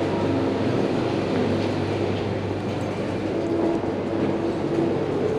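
Steady, even noise echoing in a railway station's tiled pedestrian underpass, with no single clear source standing out.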